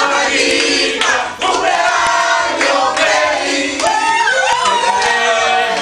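A group of a dozen or so people singing together loudly and cheering, many voices at once.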